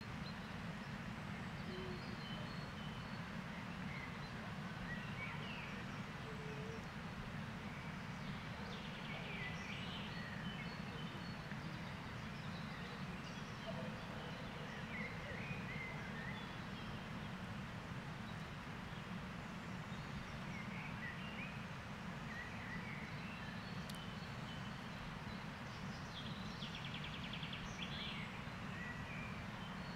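Birds chirping and calling on and off, with a couple of quick trills, over a steady low rumble.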